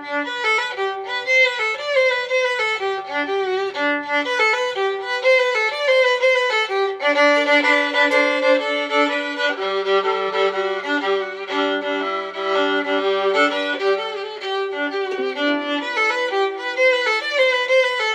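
Intro music led by violin, playing a flowing melody over lower accompanying notes, with a deeper held part joining about seven seconds in.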